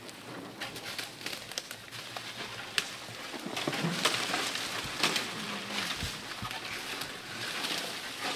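African elephant dust-bathing, flinging loose soil with its trunk: several hissing sprays of dirt, the loudest in the middle and another near the end, with a few sharp clicks.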